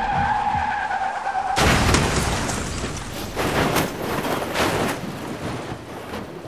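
Car tyres squealing in a skid, cut off about one and a half seconds in by a sudden loud crash, followed by several more sharp crunching impacts that die away.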